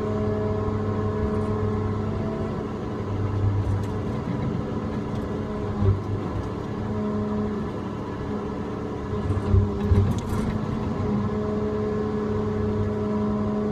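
Tigercat tracked log loader's diesel engine and hydraulics running steadily, heard from inside the cab. A higher whine drops away after a couple of seconds and comes back near the end. Dull knocks come about six seconds in and again around ten seconds as the grapple handles pulpwood logs.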